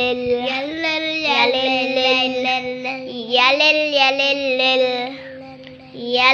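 A child singing a melody in long held notes, phrase after phrase, with a short pause about five and a half seconds in.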